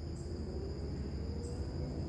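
Crickets trilling steadily in one unbroken high tone, over a constant low rumble, with two faint short high notes.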